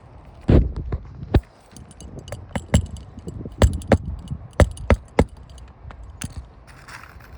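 Hammer driving a roofing nail into a replacement asphalt shingle: about a dozen sharp strikes in irregular groups of two or three. Access under the shingle above is tight, making a straight drive hard.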